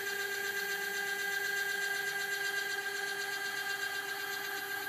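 CNC-converted G0704 mill's Z-axis drive motor and leadscrew moving the head up at 80 inches per minute, giving a steady, pitched whine that winds down in pitch at the very end as the move stops.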